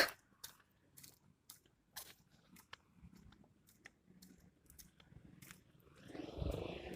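Faint close-up chewing and crunching of fried rice, with scattered sharp mouth clicks. A louder, rougher sound comes in near the end.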